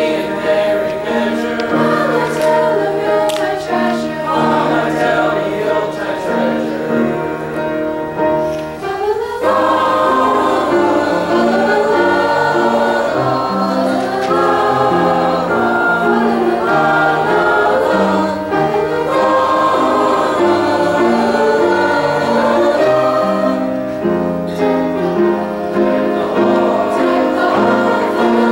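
Mixed high school choir singing in parts, with held, stepping chords. About nine seconds in, the voices rise together into a fuller, higher passage.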